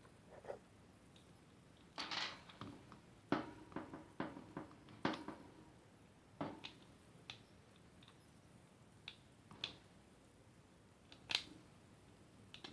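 Scattered sharp clicks and snips from small hand tools stripping plastic insulation off speaker wires, about a dozen unevenly spaced, with a short rustle about two seconds in.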